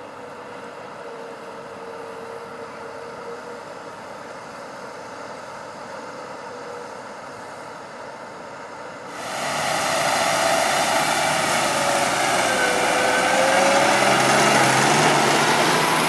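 New Holland T7 tractor engines pulling loaded silage trailers: first a steady drone at a distance, then, about nine seconds in, suddenly much louder and closer as a tractor passes, its pitch shifting slightly.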